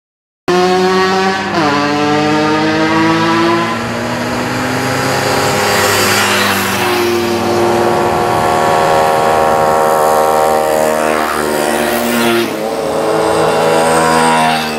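Several small two-stroke moped engines running hard as the mopeds come up the road and pass close by, the engine note dipping in pitch about one and a half seconds in and again near the end.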